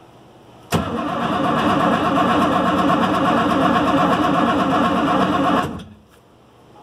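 Race car engine being cranked over by its starter motor for about five seconds without catching. It starts abruptly about a second in and winds down near the end. The cranking sounds like it is spinning fast enough, so the no-start is not down to a slow starter.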